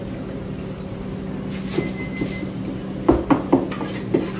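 Sharp knocks and clatters of kitchen utensils and containers at a restaurant prep counter: two light clacks around the middle, then four loud knocks in quick succession near the end, over a steady low hum of kitchen equipment.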